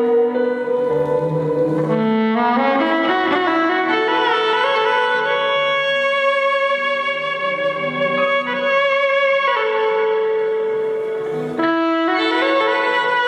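Instrumental music: a melody of long held notes, with a few slides from one note to the next.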